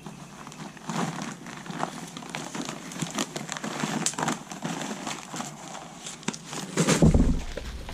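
Grey packing paper being crinkled and pulled off wrapped exhaust parts: irregular rustling and crackling, with a louder rustle and low bump near the end.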